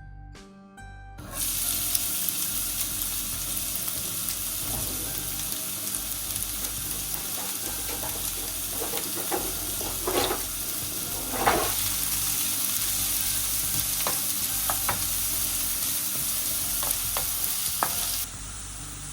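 Chopped onions sizzling in oil in a frying pan, with a steady hiss that starts about a second in and cuts off abruptly near the end. A utensil stirs and scrapes the pan a few times around the middle, followed by a few light clicks. Soft plucked background music plays at the very start.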